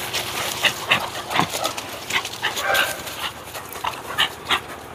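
Young Labrador, German Shepherd and Bullmastiff dogs play-fighting in a group, giving short, irregular yips and barks.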